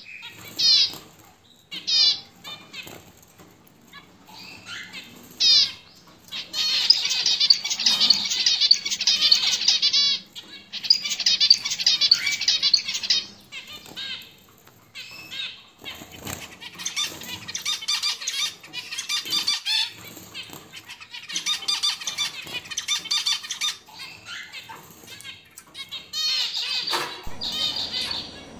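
Caged zebra finches calling and singing. A few short, sweeping call notes come first, then about five bouts of fast, dense zebra finch song, each a few seconds long, with short pauses between them.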